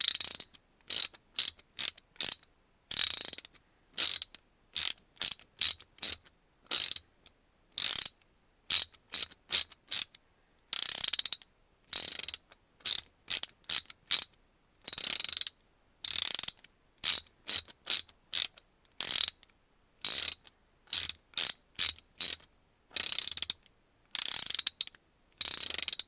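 GATOR GRIP 3/8-inch-drive, 40-tooth ratchet handle being swung back and forth, its pawl clicking over the gear in separate strokes, some quick and some over a second long, with short pauses between them.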